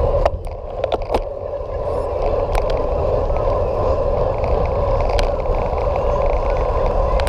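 Bicycle riding noise picked up by an action camera on the move: wind rumble on the microphone and steady tyre and drivetrain noise, with a few sharp clicks and knocks in the first three seconds and one more about five seconds in.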